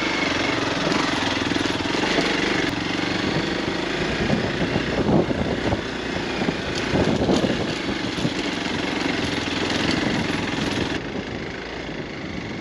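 Motorcycle engine running while riding, with a rapid, rough pulsing; it swells louder twice near the middle.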